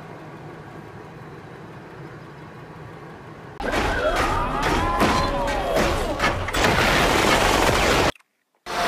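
Action-movie explosion and gunfire sound effects that start suddenly about three and a half seconds in, over a low steady background. The effects are dense sharp blasts and shots with a whooshing tone that rises and falls, and they cut out briefly near the end before starting again.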